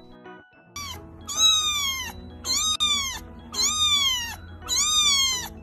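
Kitten meowing: a short high mew, then four longer mews about a second apart, each rising and then falling in pitch, over quiet background music.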